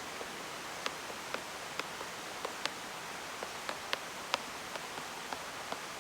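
Small wood fire burning in a Firebox camp stove, crackling with irregular sharp pops over a steady hiss.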